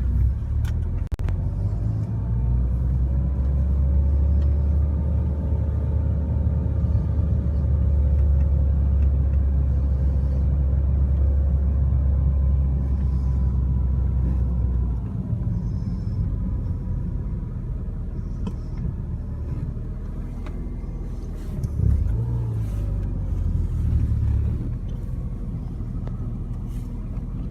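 Car in motion: steady low engine and road rumble, with an engine tone that slowly rises and falls as the speed changes.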